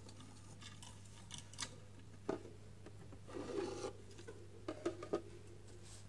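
Scattered clicks and scrapes in a wooden budgie nest box lined with wood shavings, with a longer scraping rub a little past halfway and a quick run of sharp clicks near the end. A faint steady hum sits underneath.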